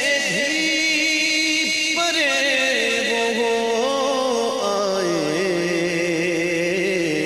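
A man singing a naat (Urdu devotional poem) in a solo voice, drawing the words out into long held notes with slow ornamented wavers. The melody steps down to a lower held note about two-thirds of the way through.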